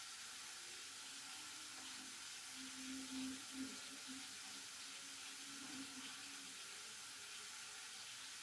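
Steady, faint hiss of a covered pot simmering over a lit gas burner, with a faint low wavering tone for a few seconds in the middle.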